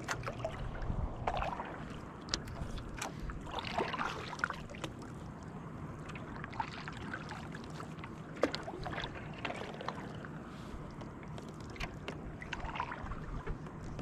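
Kayak paddle strokes: the blades dipping and splashing in calm water every few seconds, with a few sharp clicks in between.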